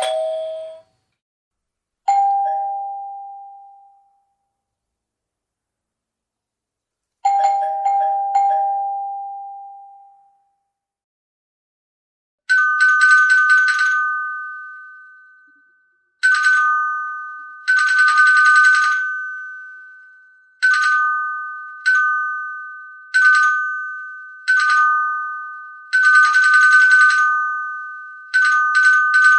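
Doorbell chimes: two low, slow two-note ding-dongs that ring out and fade, then from about twelve seconds in a higher-pitched two-tone bell rung over and over, each ring opening with a quick rattle of strikes and decaying, about every one to two seconds.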